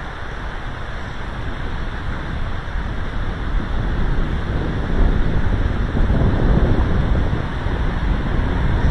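Wind buffeting the microphone in uneven gusts, louder from about halfway through, over a steady rush of flowing river water.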